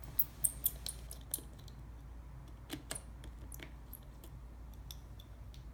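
Scattered light clicks and ticks of a precision screwdriver and small metal parts inside an opened iPhone 6, coming in two clusters, over a faint steady low hum.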